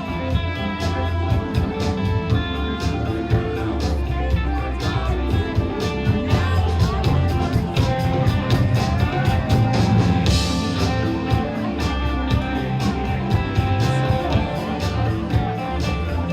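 Rock music: guitar over bass and drums with a steady beat, and a cymbal crash about ten seconds in.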